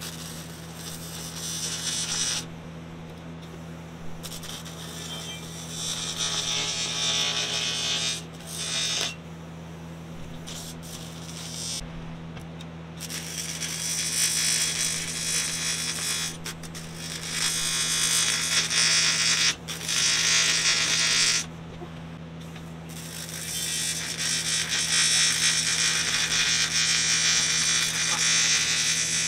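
AC TIG welding arc on aluminum from a Miller Syncrowave, buzzing in several runs of a few seconds each with short pauses between as the beads are stacked to build up a wide gap. A steady low hum lies underneath.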